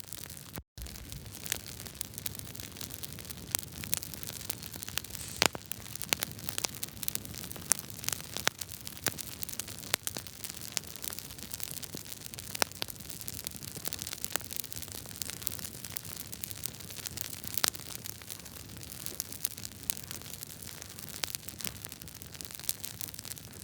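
Wood fire crackling: irregular sharp pops and snaps of burning logs over a steady hiss. The sound drops out for a split second near the start.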